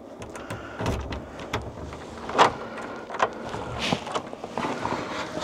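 Footsteps and the knocks and clatter of a door being opened as people go inside, an irregular series of sharp knocks with the loudest about two and a half seconds in.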